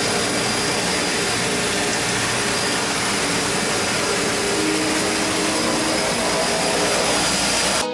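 Steady, loud drone of a seaplane's propeller engines heard from inside the cabin.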